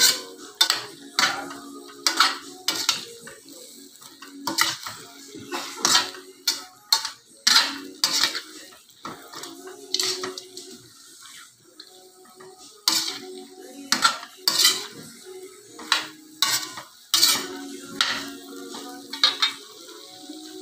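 Metal spatula scraping and knocking against a stainless steel wok as chicken and potato pieces are stirred, in irregular clanks about one or two a second, some leaving a short metallic ring.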